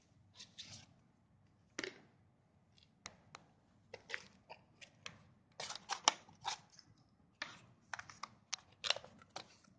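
A smartphone's cardboard retail box and the plastic-wrapped USB cable inside it being handled by hand: short, irregular clicks and rustles.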